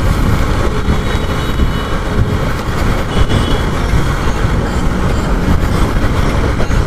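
Motorcycle on the move, its engine and road rumble mixed with heavy wind noise over an action camera's microphone.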